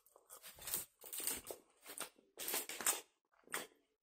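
Close-up eating noises: chewing and crunching of a kebab sandwich and French fries, in short irregular bursts.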